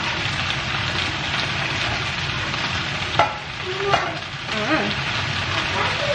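Sliced potatoes frying in a large frying pan, a steady sizzle, while a spatula stirs them, scraping and knocking against the pan, with two sharp knocks about three and four seconds in.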